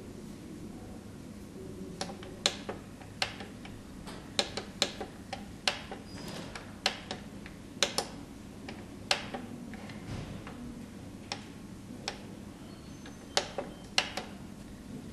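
Toshiba TEC B-EX4T1 barcode label printer's control-panel keys clicking as they are pressed: sharp single clicks at irregular spacing, about twenty in all, over a low steady hum.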